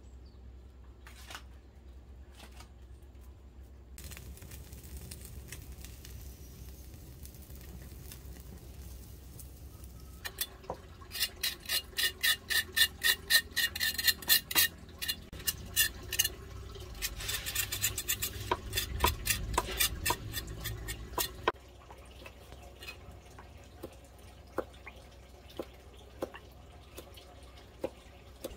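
A utensil working quickly against a bowl or pot, as in stirring or beating, with a run of sharp, regular strokes about four a second partway through, then a denser scraping stretch, then a few light clicks.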